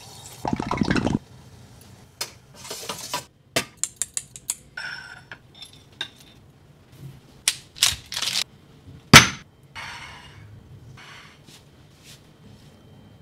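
A quick run of kitchen handling sounds: a metal spoon clinking and tapping against plates and dishes, mixed with short rustling bursts. The loudest is one sharp knock about nine seconds in.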